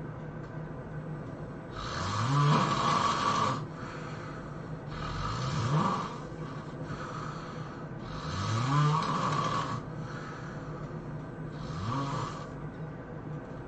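A sleeping person snoring heavily: four snores about three seconds apart, each rising in pitch as it goes, over a steady low hum.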